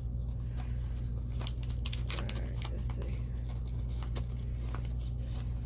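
A small surprise-accessory packet being torn open and its wrapping crinkled by hand, with a dense run of sharp crackles about a second and a half to two seconds in. A steady low hum sits underneath.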